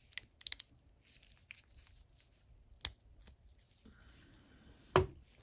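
Small sharp metal clicks and faint scraping as a coil retention ring is worked out of a ratchet head: a quick cluster of clicks at the start, another click about three seconds in, and a heavier knock near the end.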